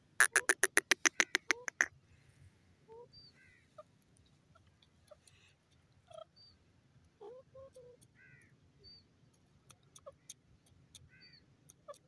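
Grey francolin calling: a rapid run of about a dozen loud, sharp notes over the first two seconds, then fainter scattered bird calls and chirps.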